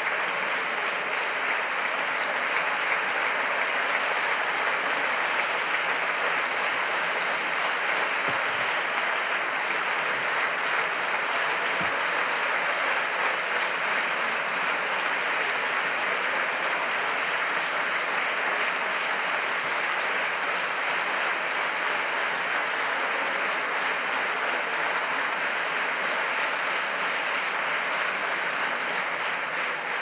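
Long, steady applause from many deputies clapping on the benches of a parliament chamber.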